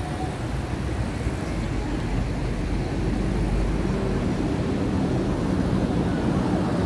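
Transjakarta bus engine running as the bus passes directly below, a low steady drone that grows louder about halfway through.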